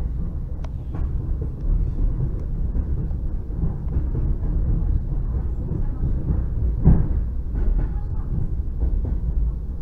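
Steady low rumble inside a moving electric commuter train's carriage, with a few short knocks, the loudest about seven seconds in.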